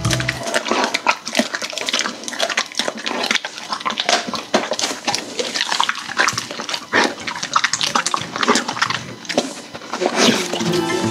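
German shepherd dog chewing and crunching dried meat treats, a fast, irregular run of crackling bites and clicks.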